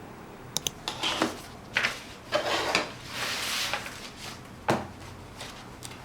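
Small objects being handled: a string of light clicks and knocks, with a longer rustle from about two to four seconds in.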